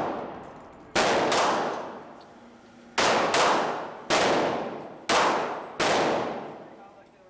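Gunshots at a shooting range, about seven sharp reports in the space of five seconds, some in quick pairs. Each dies away in a long echoing tail.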